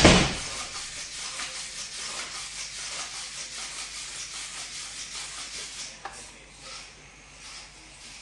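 Walking radio-controlled model helicopter moving over concrete: a steady scratchy, rattling noise that starts with a loud burst and gets quieter about six seconds in.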